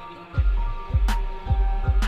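Background electronic music with a steady beat: deep kick-drum thumps under held synth tones, with one sharp snare hit about a second in.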